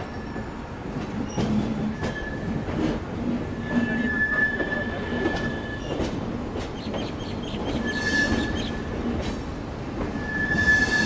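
Pushpak Express passenger train running into the station: a steady rumble of the coach's wheels on the rails, with scattered clicks and a high wheel squeal that comes and goes about four times, loudest near the end.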